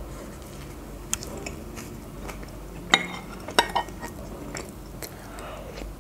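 Close-up chewing of a mouthful of burger, then a metal spoon clinking against a glass soup bowl a few times, the sharpest clink about three seconds in.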